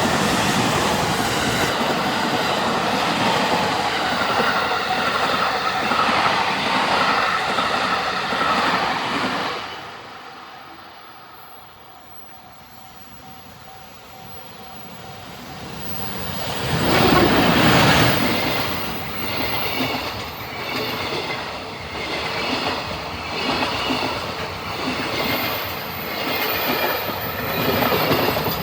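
An electric passenger train passes with loud wheel-on-rail noise, fading away about ten seconds in. After a quieter lull, a JR Freight EF510 electric locomotive comes through loudly at about seventeen seconds, followed by the rhythmic clatter of freight wagons over the rail joints.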